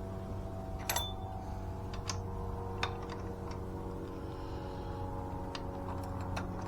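A few light, separate metal clicks and taps from handling the jack's hex key and fittings, over a steady low hum.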